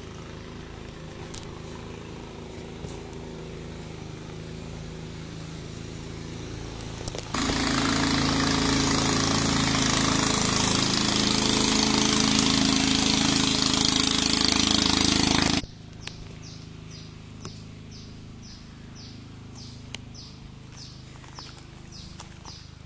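A low steady hum, then a loud steady machine-like noise that cuts in suddenly about seven seconds in and stops just as suddenly about eight seconds later. After it come faint, evenly spaced footsteps on a gravel path.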